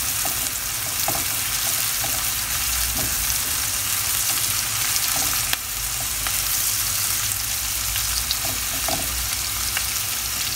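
Diced onion frying in oil and butter in a pan, a steady sizzle with a spatula stirring it and a few faint ticks scattered through. The onion is being softened without browning.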